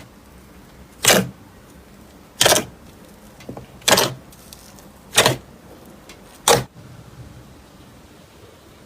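Slime being squeezed and pressed by hand: five short squishes at an even pace, one about every second and a half, then a few faint soft crackles near the end.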